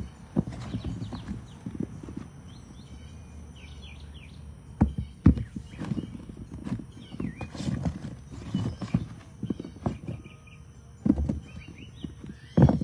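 Irregular knocks and bumps of hands handling things, with a couple of sharper knocks about five seconds in and two more near the end.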